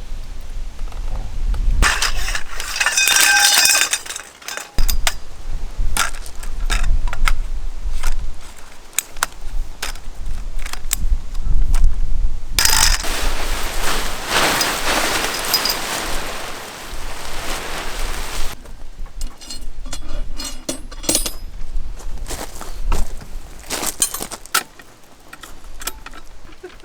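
Metal camping gear being handled: repeated clinks and knocks, with a ringing metallic clatter a couple of seconds in. A loud rustling hiss lasts several seconds midway.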